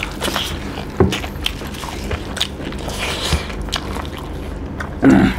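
Close-miked eating sounds: chewing and biting, with scattered sharp clicks and smacks, as people eat chicken and rice by hand. A brief voice sound comes near the end.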